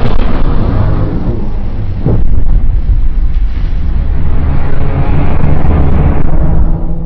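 Loud, deep rumbling sound effect made for a giant monster, mostly low rumble and rough noise, with a brief pitched cry about two seconds in.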